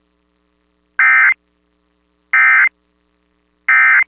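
Emergency Alert System SAME header: three short, identical bursts of warbling digital data tones, evenly spaced about a second and a half apart. This is the coded header that opens a new alert.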